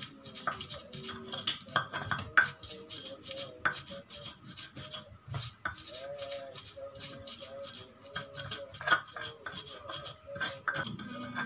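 Stone pestle grinding shallots and garlic in a stone mortar (ulekan and cobek): irregular scraping and grinding strokes with small stone-on-stone knocks, two or three a second.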